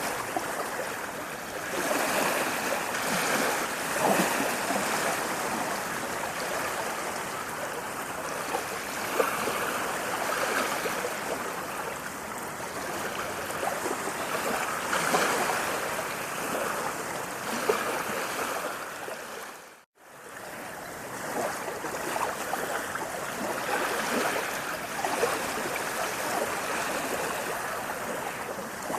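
Running water rushing steadily, swelling and easing every few seconds. It cuts out abruptly for a split second about two-thirds of the way through, then carries on.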